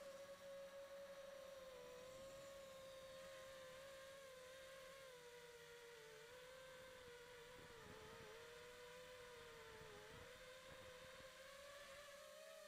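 Faint whine of a 5-inch FPV quadcopter's brushless motors in flight, picked up by its onboard camera, the pitch wavering gently with the throttle and starting to drop right at the end.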